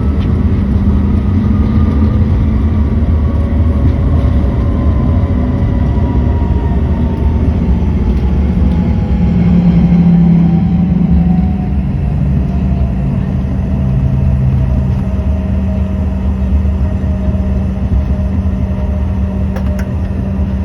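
CRJ200 jet's turbofan engines running with a steady low rumble, their whine falling slowly in pitch as the engines wind down after landing.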